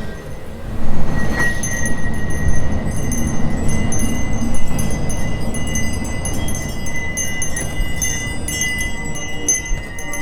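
Tinkling chimes over a held high tone, with a loud low rumble that comes in about a second in and continues.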